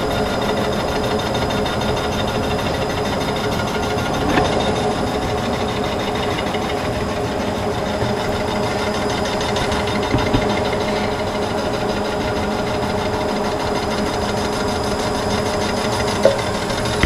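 A vertical mill running a line-boring bar through an engine block's main bearing bores, a steady machine hum with several steady tones as the cutter takes a light cut, shaving small chips. A few faint clicks come through, a third of the way in, past halfway and near the end.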